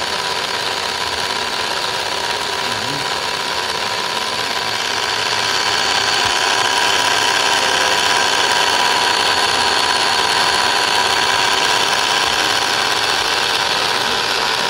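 RC model amphibious car's propeller motor running steadily with a whine, its stern propeller churning water; it gets a little louder about five seconds in.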